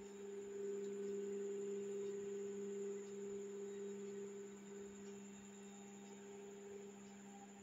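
Steady low hum of two held tones with a faint high whine above them, louder from about half a second in until about three seconds in.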